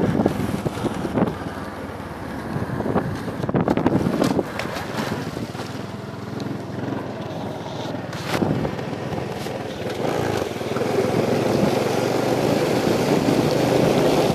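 Motorcycle engine running as the bike rides along, with wind on the microphone and a few sharp knocks as the phone rubs against clothing. In the last seconds the bike goes into floodwater and the wheels throw up splashing water.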